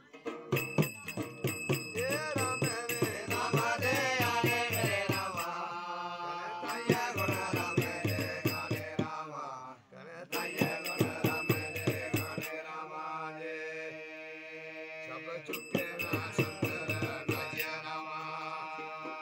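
Dogri masada folk ballad: a man sings in a chanting style to a strummed long-necked stringed instrument with a skin-covered body, with a steady rhythm of strokes and jingling bells. The music drops out briefly about ten seconds in, then the singing carries on.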